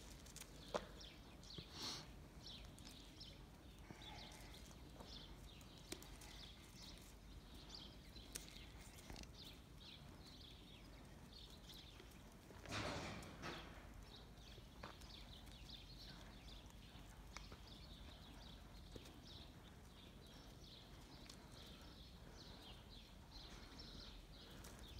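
Near-silent outdoor quiet with faint short high chirps throughout and a few soft taps and scuffs on dirt. The loudest is a brief scuffling rustle about halfway through.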